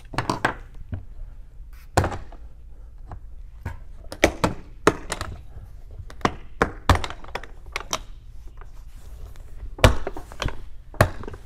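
Latches of a black hard-plastic equipment case being snapped open and the case handled: a string of sharp, irregular plastic clicks and knocks, the loudest about two seconds in and again near the end.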